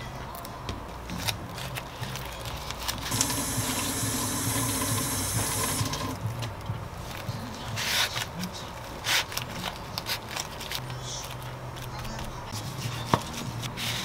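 Hands rolling a gimbap in sheets of dried seaweed on a wooden cutting board, with soft rustling and small taps. A few seconds in, water runs with a steady hiss for about three seconds. Near the end a knife cuts through the roll with a sharp tap on the board.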